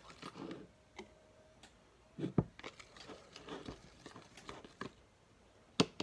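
Plastic baby spoon stirring and scraping a thick flour paste in a plastic bowl, with irregular light clicks and taps of the spoon against the bowl, a sharper tap near the end.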